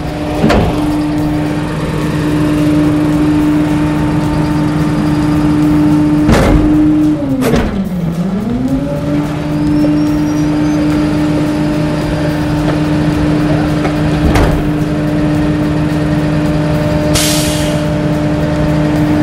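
Rear-loading garbage truck running its packer: the engine and hydraulic pump hold a steady whine while the packer blade sweeps and compacts the trash in the hopper. The pitch sags and recovers once about eight seconds in as the hydraulics take the load. There are several metal clunks and a short hiss of air near the end.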